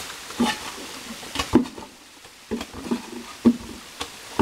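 Hand tools digging and scraping into wet gravel and mud, with irregular knocks and clatters of stones several times over.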